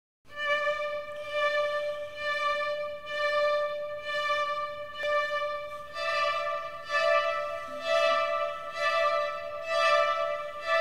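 Instrumental background music: a held, string-like melody whose notes swell about once a second and step up to a higher note about six seconds in.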